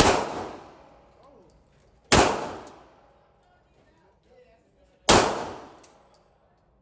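Three gunshots, the second about two seconds after the first and the third about three seconds after that, each ringing out for about a second.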